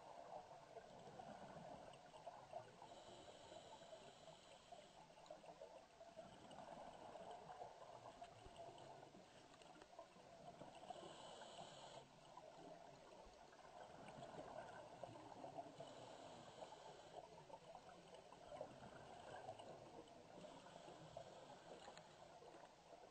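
Faint, steady bubbling and gurgling of water, with a higher hiss that swells for a second or two every few seconds; it cuts off suddenly at the end.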